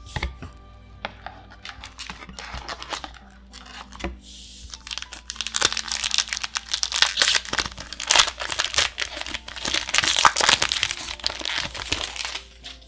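A booster pack's foil wrapper being torn open and crinkled: sharp crackling and tearing that grows loudest in the second half and stops just before the end.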